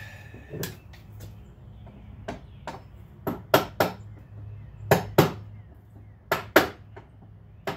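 Hammer tapping at a door hinge: about eleven sharp taps, mostly in quick pairs a quarter second apart, with short pauses between the pairs.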